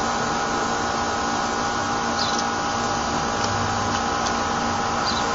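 Steady mechanical hum with several steady tones running under it, unchanging throughout, with two faint, short high chirps a little past two seconds in.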